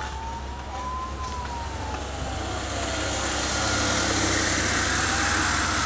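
Emergency vehicle siren wailing slowly up and down, with a rise and fall lasting a few seconds. The vehicle's engine and road noise grow louder from about three seconds in as it draws nearer.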